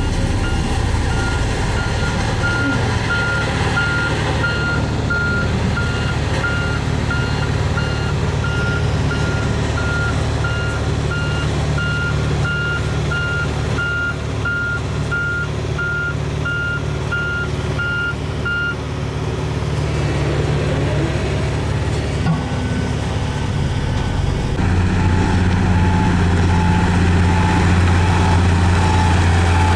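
Reversing alarm on a heavy construction vehicle at an asphalt paving job, beeping about once a second over a running diesel engine. The beeping stops about two-thirds of the way through. Near the end an engine grows louder and a fainter, lower-pitched beeper starts up.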